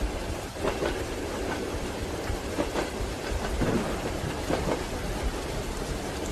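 Steady rain with the low rumble of a moving train and the wheels clacking over rail joints at irregular intervals.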